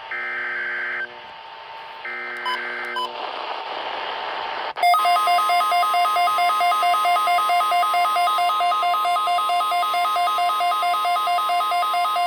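Emergency Alert System test signal on weather radio: the last two of the three SAME header data bursts, each a harsh digital screech about a second long, then a moment of static, then a loud, rapidly pulsing alert tone from about five seconds in.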